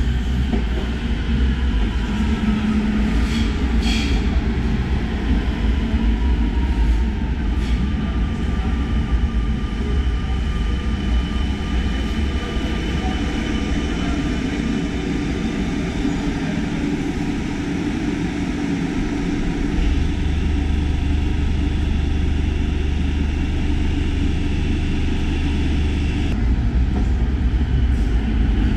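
Barcelona Metro train in an underground station: a steady, loud rumble of wheels and motors, with a thin whine that falls slightly as the train slows into the platform. A few sharp clicks come about three to four seconds in, and the rumble swells about twenty seconds in.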